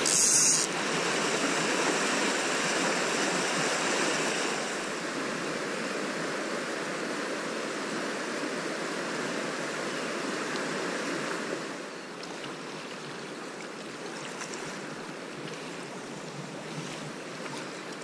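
Fast-flowing river rushing over stones in broken white water, a steady wash of water noise. It gets quieter in two steps, about a third of the way in and again about two-thirds in.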